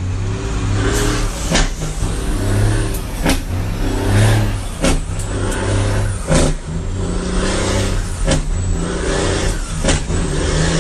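Heavy truck's diesel engine heard from inside the cab, revving up and dropping back again and again as the driver shifts through the gears with the stick and clutch. Sharp clicks or rattles come every second or so.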